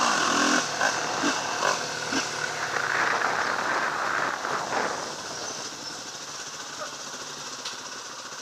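Motorcycle running, heard with wind and road noise, with a few sharp knocks; the sound drops off about five seconds in.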